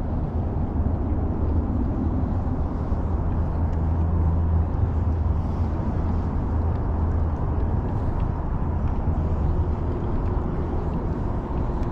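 Steady rushing noise with a strong low rumble underneath, heaviest in the first half.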